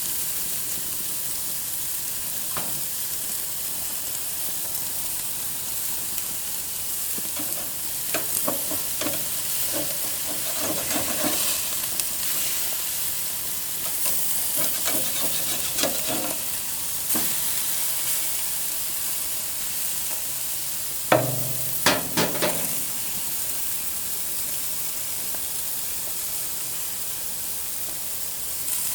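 Food sizzling on a grill: a steady hiss with scattered crackling pops in the middle stretch. A quick cluster of sharp clicks, the loudest sounds here, comes about two-thirds of the way through.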